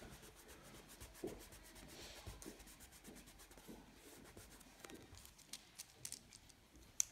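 Faint rubbing of a fingertip blending black oil pastel on sketchbook paper, in quick repeated strokes, with a sharp click near the end.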